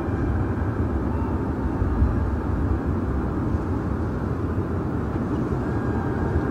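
Steady low rumbling noise with no clear events, with a faint thin high tone or two now and then.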